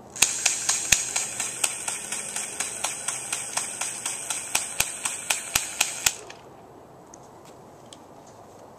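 Airsoft gun firing a rapid string of sharp shots, about three to four a second over a steady hiss, which stops suddenly about six seconds in.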